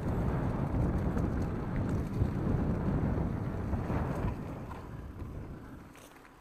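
Mountain bike rolling over a dirt trail: tyre rumble and rattle mixed with wind buffeting the microphone, with a few faint clicks. The noise fades over the last two seconds.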